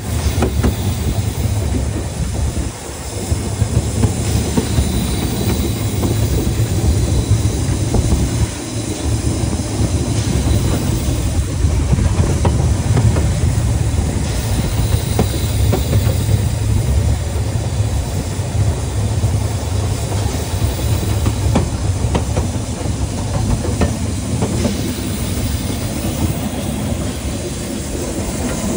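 Narrow-gauge steam train running along the track: a steady, loud rumble of wheels on rail with scattered clicks over the rail joints.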